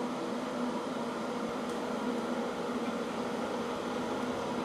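Wire-feed welding arc burning continuously as a bead is run around a 6-inch steel pipe: a steady hiss with a steady hum underneath.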